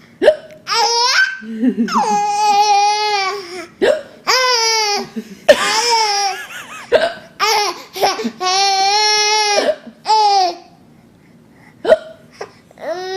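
A baby laughing in a run of high-pitched squeals, broken by several short, sharp hiccups.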